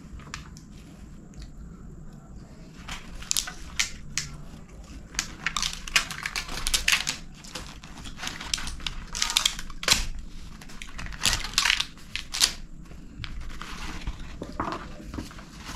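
Paper packaging of a takeaway food box crinkling and tearing as it is pulled open, a run of rustles and sharp crackles. Near the end it turns to softer rustling as the paper lining inside is unfolded.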